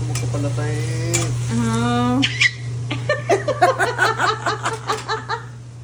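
A person's voice in a few drawn-out, sing-song calls, then a quick run of laughter starting about three seconds in, over a steady low hum.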